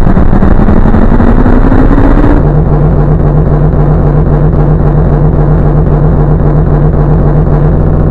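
Loud engine sound, revving up with a rising pitch for about two seconds, then dropping suddenly to a lower, evenly throbbing idle.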